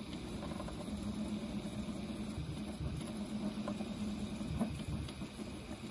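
Prusa MK3S 3D printer at work mid-print: the stepper motors hum in a low steady tone with brief breaks as the print head moves, over the steady rush of its cooling fans.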